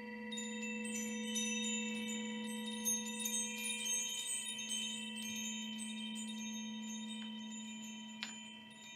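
Hanging metal chimes struck into a shimmer of many high tinkling notes, densest in the first few seconds and thinning out, over the steady low ring of a crystal singing bowl.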